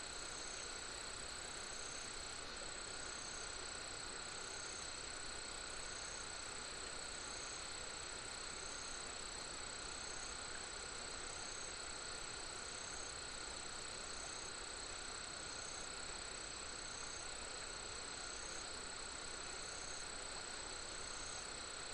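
Crickets and other insects trilling steadily at several high pitches, one of them chirping in a regular pulse about once a second, over an even rush of a mountain stream.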